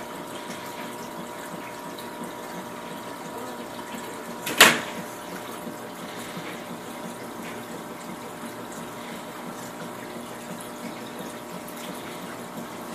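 Aquarium filter running, a steady rush of moving water with a faint steady tone under it. A single sharp knock cuts in about four and a half seconds in.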